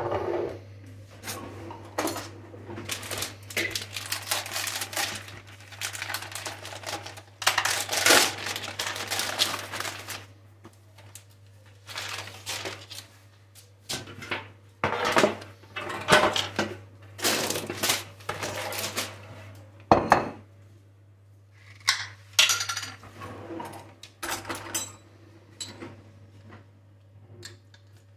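Food-prep handling noise at a kitchen counter: plastic packaging crinkling as a pizza base is unwrapped, with clatters and clicks from a baking tray and utensils, coming in irregular bursts with short pauses.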